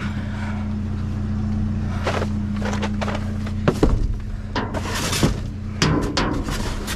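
Steady low hum of an idling vehicle engine, with irregular metal clanks and rattles from about two seconds in as scrap is handled in the dumpster.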